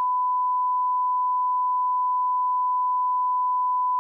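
Steady 1 kHz line-up test tone played with colour bars: one pure, unbroken beep at a single pitch.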